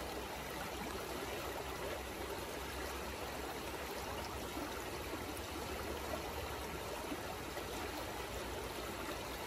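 Shallow river flowing steadily over a bed of rocks and pebbles.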